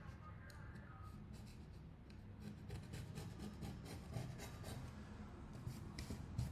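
A small knife blade scraping old screen adhesive from a smartphone's display recess, in short scratchy strokes with small clicks.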